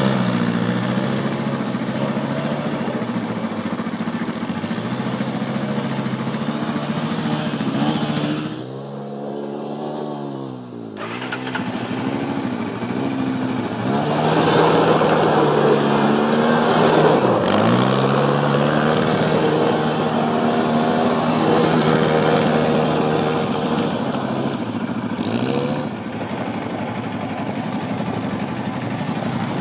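Sport ATV engines revving up and down again and again as the quads spin and slide on loose gravel. The engine goes quieter and duller for a couple of seconds about a third of the way in.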